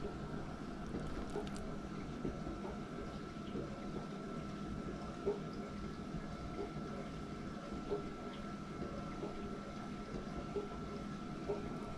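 A steady hum with a faint high whine, over which a serving spoon makes a few soft clicks and squelches as it scoops a cheesy baked potato dish from a glass baking dish.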